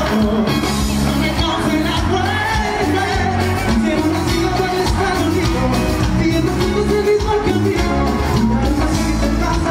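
Tropical cumbia band playing loud with a male lead singer singing over drums, percussion and electric bass, in a steady danceable beat.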